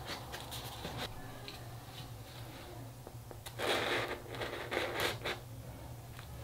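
A top bun being set on a stacked hamburger and a wooden skewer pushed down through it: a few light taps at first, then two short bursts of crisp rustling scrapes a little past halfway as the skewer goes through the layers and the bun is pressed down.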